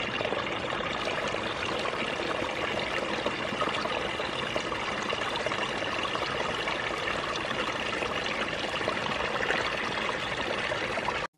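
Steady trickling and splashing of muddy water in a flooded burrow, stirred where a young crocodile lies. It cuts off abruptly near the end.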